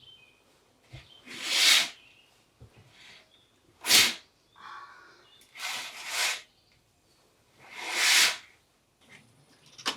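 Four loud swishing strokes, each under a second and about two seconds apart, followed by a sharp click near the end.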